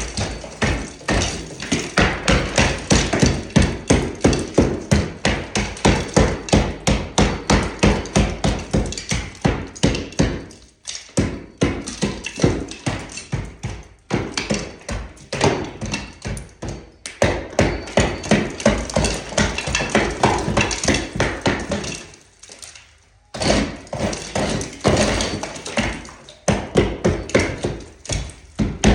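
Hammer striking old plaster and lath during wall demolition, rapid repeated blows about three a second, with a break of about a second roughly three-quarters of the way through.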